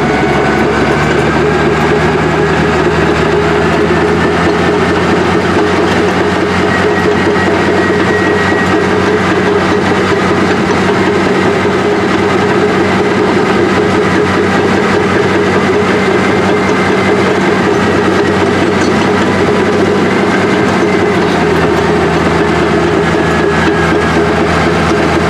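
Old Caterpillar heavy-equipment diesel engine running steadily and loudly. Its low note shifts slightly near the end.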